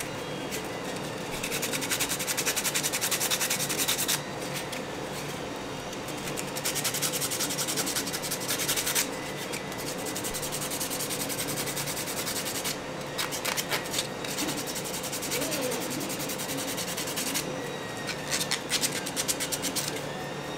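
Sandpaper rubbed by hand over a small 3D-printed plastic part in four spells of quick back-and-forth strokes, a few seconds each, with short pauses between. The sanding smooths off the nubs left by the print supports.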